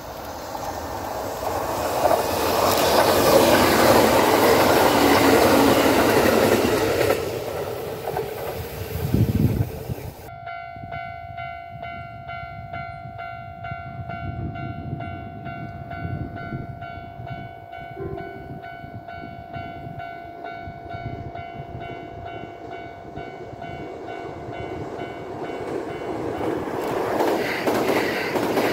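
A Kintetsu electric train rushes past, loudest a few seconds in and fading after about 7 s. After a sudden cut, a steady hum of several even tones holds, while a Kintetsu 22000-series limited express approaches and starts rumbling past near the end.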